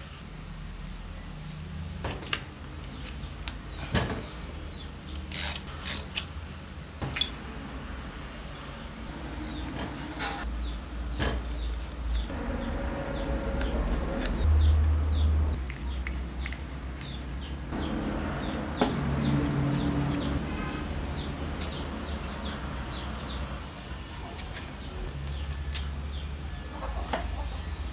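Hand disassembly of an old Makita electric groove cutter's handle and switch: metal parts and screws clink and knock on the workbench, with the sharpest clinks in the first few seconds. A cordless screwdriver runs briefly about halfway through, backing out a screw.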